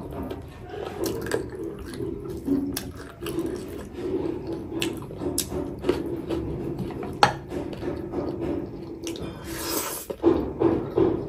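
Close-up wet chewing and lip-smacking of someone eating rice and greens by hand, with sharp clicks, some from fingers working the food on the plate. Near the end, a short hissing slurp as leafy saag is drawn into the mouth.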